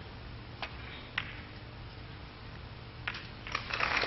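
Snooker break-off in a quiet hall: the cue tip clicks on the cue ball, and about half a second later there is a sharper click as the cue ball strikes the pack of reds. A couple of softer ball clicks follow about three seconds in, then audience applause rises near the end.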